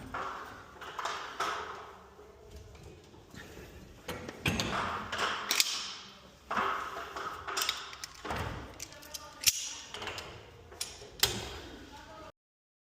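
Irregular metallic clinks and knocks from tools and hardware, with rustling and scraping between them, as work goes on at a garage door. The sound cuts off suddenly near the end.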